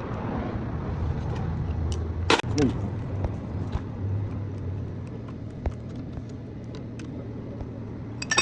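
Steady low rumble of a running engine, with a sharp knock about two seconds in and a few metallic clinks near the end.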